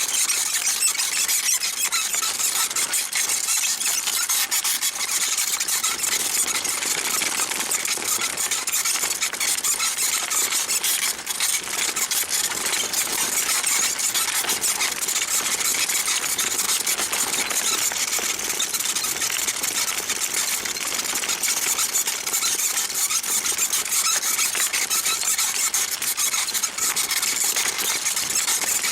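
Small rebuilt Mifa bicycle saddle with a synthetic-leather cover squeaking loudly and without let-up as it is ridden, a fast run of high squeaks.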